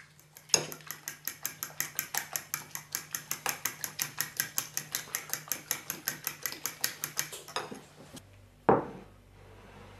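Metal fork beating eggs in a glass bowl, clicking against the glass in a quick, even rhythm of about five or six strokes a second; it stops about 7.5 s in. One loud thump follows near the end.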